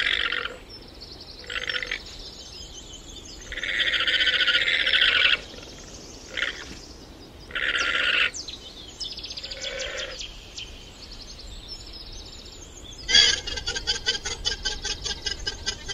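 Llama giving a string of shrill, high-pitched calls, each lasting from half a second to about two seconds, with a rapid pulsing call near the end.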